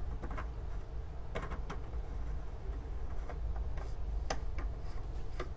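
Scattered light clicks and ticks, irregularly spaced, as a faucet aerator is screwed back onto the spout by hand, over a steady low hum.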